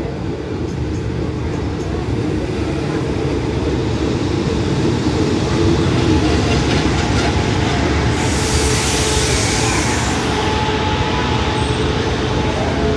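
Diesel multiple-unit express train drawing into the station, its engines and wheels rumbling louder over the first few seconds as the carriages roll past the platform and slow to stop. A loud hiss comes in about eight seconds in and lasts a couple of seconds, and thin squealing tones, typical of braking, follow near the end.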